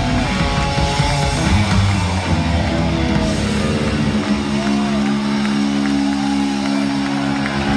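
Hard rock band playing live through a concert PA, with electric guitar up front. About four seconds in, the band settles onto a long held chord.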